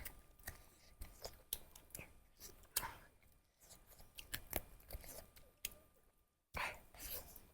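Close-miked eating sounds from a duck curry meal: irregular small clicks, smacks and chewing noises.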